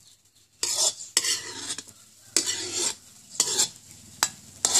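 Metal spatula scraping around the inside of a steel wok, about six short scrapes after a quiet first half second, as stir-fried bamboo shoots are scooped out onto a plate; the hot wok sizzles faintly underneath.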